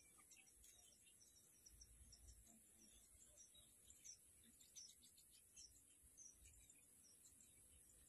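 Faint outdoor ambience: scattered short, high bird chirps, a little louder around the middle, over a steady high hiss.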